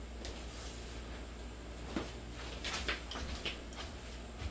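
A few faint knocks and rustles of a potted orchid being lifted from the counter and carried, over a low steady hum.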